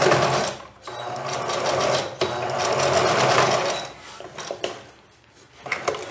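Singer Facilita electric sewing machine stitching in three short runs with brief pauses between them, sewing reinforcing stitches over the overlapped ends of a waistband elastic. The machine stops about four seconds in, and a few light clicks follow near the end.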